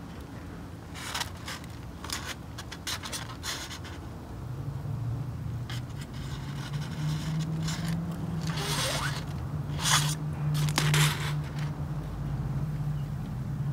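Aluminium foil crinkling and scraping in short scratchy bursts as a dial thermometer's probe is worked into a foil-wrapped brisket. A low steady hum comes in about four seconds in.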